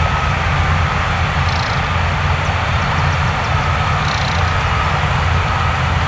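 Heavy diesel earthmoving machinery running at a steady low rumble, with a reversing alarm beeping on and off and a couple of brief high squeaks, about one and a half and four seconds in.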